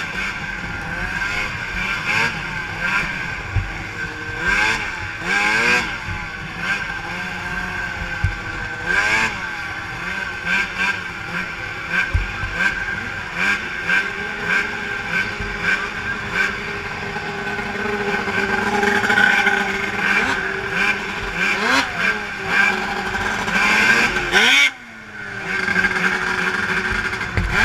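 Several racing snowmobile engines running hard around a snocross track. Their pitch climbs and falls again and again as the sleds rev and back off, and engines overlap one another. The sound drops sharply for about a second near the end, then picks up again.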